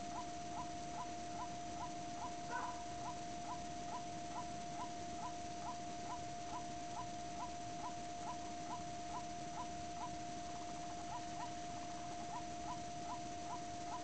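White-breasted waterhen calling: one short note repeated evenly about two and a half times a second, with a slightly louder call about two and a half seconds in, over a steady high-pitched tone.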